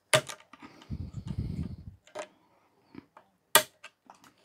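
Screwdriver prying at a brittle, broken plastic lamp-holder collar: two sharp cracking clicks, one just after the start and one about three and a half seconds in, with a few lighter ticks and a low rumble of handling in between.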